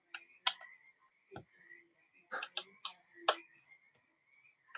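Small screwdriver tightening the bottom-cover screws of a laptop: a run of sharp, irregularly spaced clicks, about eight of them, as the driver and screws catch and seat in the plastic case.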